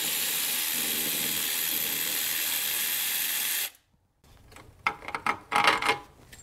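Electric ratchet spinning a 14 mm bolt out, a steady whirring run of nearly four seconds that cuts off suddenly. A few clinks and clatters follow as the loosened bolt and part are handled.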